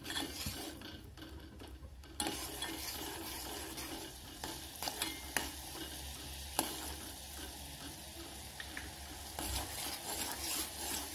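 Sugar syrup bubbling at the boil in a metal pot, stirred with a steel ladle that scrapes and clicks against the pot now and then. The syrup is being cooked to just under one-thread consistency.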